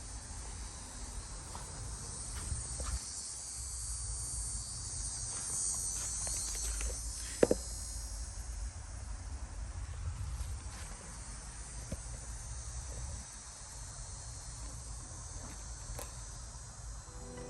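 A steady high-pitched insect chorus that swells and fades again midway, over a low rumble, with one sharp click about seven and a half seconds in.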